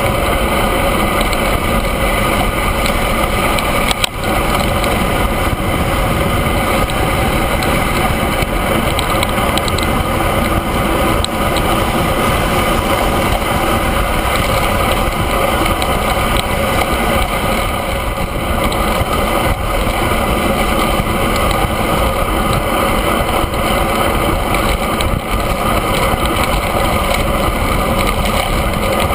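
Steady rush of wind and road noise on the microphone of a camera mounted on a road bike's handlebars while riding. One brief knock about four seconds in.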